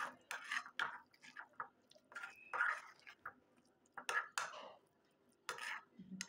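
A spoon stirring and pressing a thick, wet paste of mashed bottle gourd leaves and black cumin in a bowl, making a run of irregular squelching scrapes.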